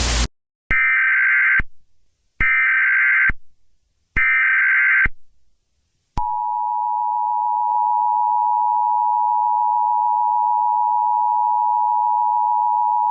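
Emergency Alert System header and attention signal. A burst of static cuts off, then three identical SAME data bursts sound about a second each with short gaps. About six seconds in, the steady two-tone EAS attention signal begins and holds.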